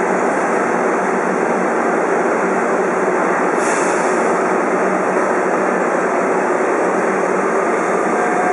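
Metro train standing at the platform with its doors open, its onboard equipment running with a loud, steady hum. A brief hiss comes about three and a half seconds in.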